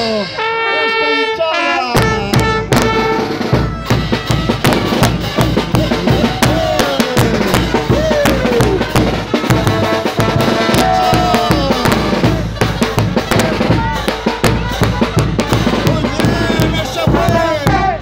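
Live brass band playing Diablada music, with a bass drum and cymbals keeping a steady beat under the horns. The drums come back in about two seconds in.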